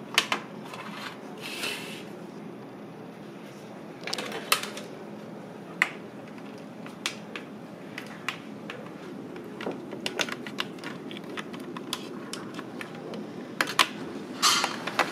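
Irregular light clicks and taps of hard lobster shell pieces being handled on an aluminium tray, over a steady background hum.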